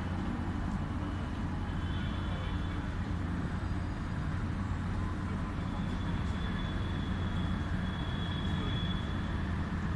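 Steady low mechanical hum, with a faint high whine coming and going above it.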